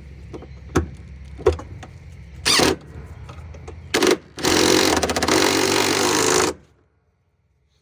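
A few sharp knocks of tools and parts, then a handheld power driver running in two short bursts and one run of about two seconds, which cuts off suddenly.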